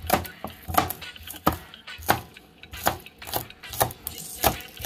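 Chef's knife chopping scallions on a plastic cutting board: a run of sharp knocks, about two a second, as the blade strikes the board.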